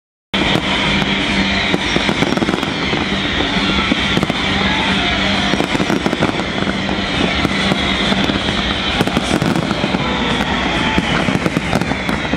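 A dense fireworks display: a rapid, unbroken crackle of many bursts and bangs going off together, with music playing underneath. The sound cuts in abruptly a fraction of a second in.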